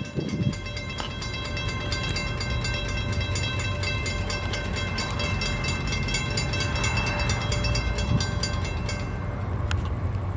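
Railroad grade-crossing warning bell ringing rapidly and steadily while the gates come down, over the low rumble of an approaching Florida East Coast Railway train. The bell stops about nine seconds in, leaving the train's rumble.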